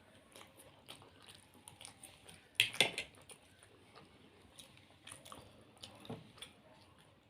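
Close-up eating sounds: chewing and biting food, with small wet clicks throughout and a louder crunchy bite a bit under three seconds in.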